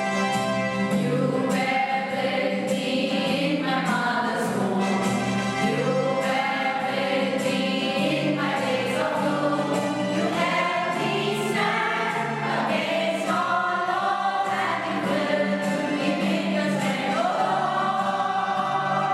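A mixed group of women and men singing a song together in unison, over a backing of keyboard-style music with a steady beat.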